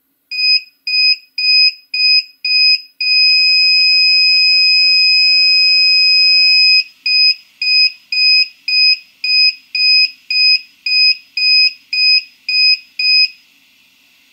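Original Prusa 3D printer's buzzer sounding an error alarm: six short beeps about two a second, one long unbroken beep of nearly four seconds, then another run of a dozen or so short beeps. It is the alarm expected when the E3D Revo hot end fails to heat.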